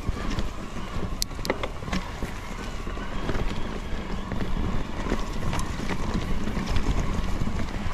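Wind buffeting the microphone over the rolling rumble of a bicycle being ridden, with scattered sharp clicks and rattles from the bike and a faint steady whine.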